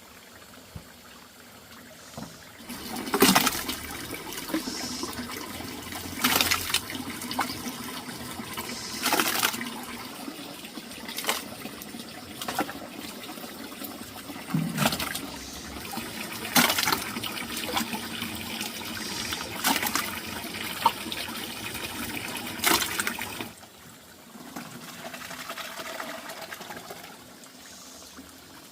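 Water splashing and pouring, with a sharp splash every second or two, then a quieter trickle near the end.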